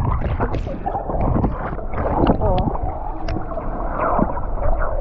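Muffled sloshing and gurgling of water around swimmers in a river, with a brief faint voice about two and a half seconds in.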